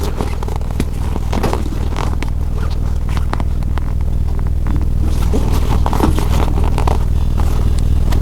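Sewing machine running at a steady pace, stitching through material, with the motor's low hum under the rapid ticking of the needle mechanism.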